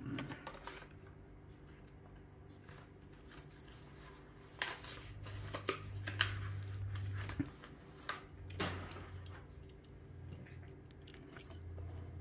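Plastic blister packaging of a Hot Wheels car being handled, with scattered crinkling, scraping and clicks, busiest in the middle.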